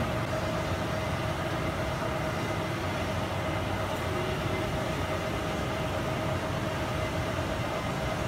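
Steady industrial din of heat-treatment equipment: the pit furnaces' top-mounted motors running and the agitated quench tank churning, with a steady whine over an even rumbling hiss.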